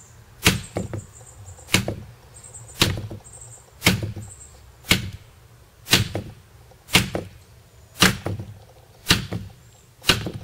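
Spine whack test on a DPX HEST titanium frame-lock folding knife: the open knife's spine is struck hard against wood about once a second, ten sharp knocks, checking whether the lock bar releases under sudden shock.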